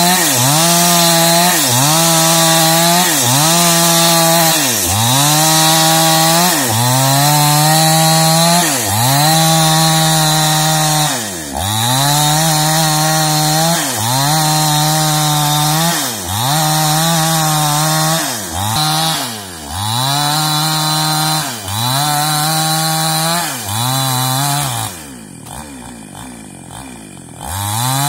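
Gasoline chainsaw ripping lengthwise along a squared log into boards, its engine pitch sagging under load and picking back up about once a second. A few seconds before the end the saw eases off and goes quieter, then revs back up into the cut.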